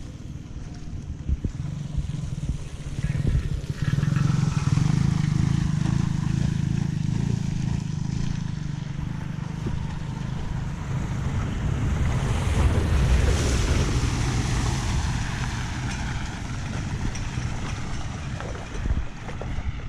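Flood water rushing and churning at a clogged culvert drain, a steady noise that swells about four seconds in and stays loud.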